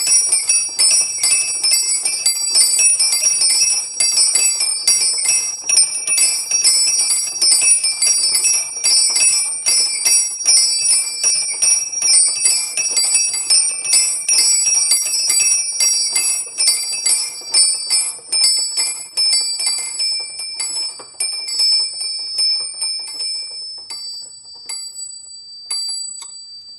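Small bells of a home-made miniature bell tower rung in a fast festive peal (scampanio), several strokes a second with high ringing tones, thinning out and dying away over the last few seconds.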